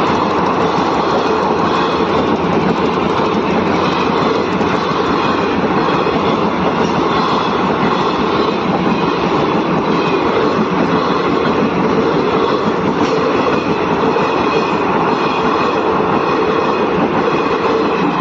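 Indian Railways train running, with the steady, unbroken noise of its wheels on the rails.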